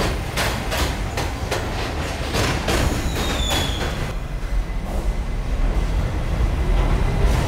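R68 subway train passing at speed, its wheels clicking over rail joints in a quick, even rhythm, with a brief high wheel squeal about three seconds in. After about four seconds the clicking gives way to a steadier low rumble of a train moving through a station.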